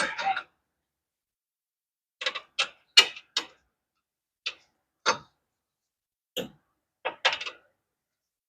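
Scattered short metallic clicks and clinks of hand tools being handled, a socket and ratchet among them, in irregular groups starting about two seconds in.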